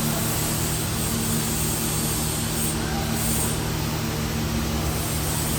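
Steady hum of a running vehicle engine with noise over it, at an even level throughout.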